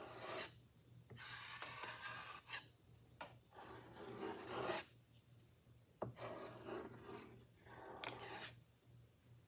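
Four-inch drywall knife scraping and spreading Bondo body filler across a wooden door: a run of rasping strokes, each about a second long, with short pauses between them, over a low steady hum.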